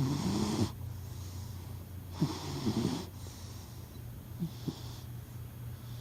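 Sleeping cat snoring: a snoring breath at the start with a wavering, pitched snore in it, another about two seconds later, and a shorter, fainter snort or two a little before the end.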